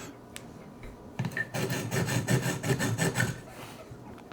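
TSProf Alpha resin-bonded sharpening stone rasped quickly back and forth along a clamped knife edge in a guided sharpening system, the stone still dry before oil is put on. The scraping starts about a second in and runs for about two seconds, several strokes a second, then stops.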